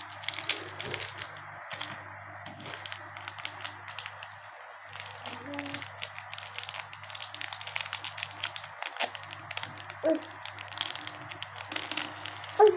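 Pink slime being squeezed and kneaded by hand, giving rapid, irregular crackles and small pops.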